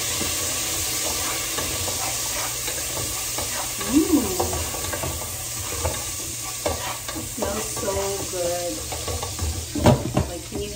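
Garlic and onions sizzling in a pot as they sauté, stirred with a spoon. One sharp knock near the end.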